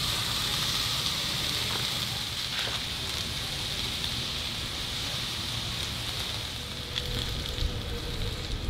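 Steady sizzling with a few light crackles from a charcoal grill, where sliced onions are frying in olive oil in a cast-iron pan and raw bacon strips are being laid on the cast-iron grate.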